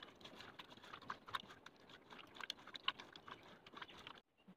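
Faint wet squelching and small crackling clicks as a hand squeezes and mashes soft tomato pulp against a metal pot. The sound stops briefly near the end.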